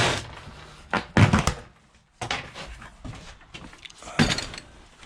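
Stripped air-conditioner parts being handled and set down: a few sudden knocks and thuds, the loudest about a second in and another about four seconds in, with quieter rattling between.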